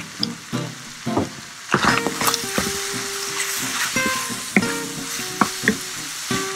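Ground beef with diced carrots and peas sizzling in a frying pan as it is stirred, with scrapes and clicks of the utensil against the pan; the sizzle gets louder about two seconds in.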